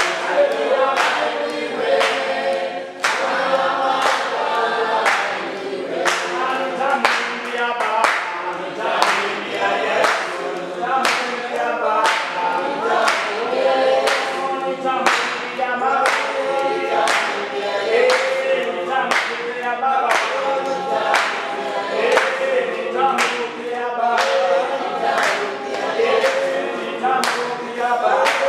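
Group of voices singing together as a choir, with steady hand clapping keeping the beat at about two claps a second.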